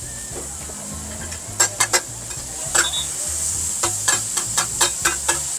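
Egg pancakes and bean sprouts frying with a steady sizzle on a hot flat-top griddle, while metal spatulas clack and scrape against the steel plate: three quick strikes in the second half of the second second, one more a second later, then a run of about seven strikes near the end, about three a second.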